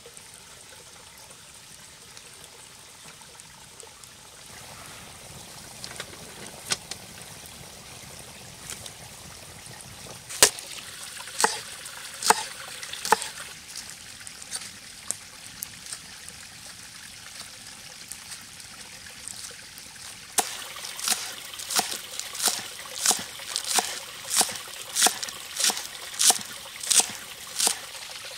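A stream trickling steadily, with a large knife chopping on a wooden log-slice cutting board: a few sharp knocks about ten seconds in, then a steady run of chops, about one and a half a second, through the last eight seconds.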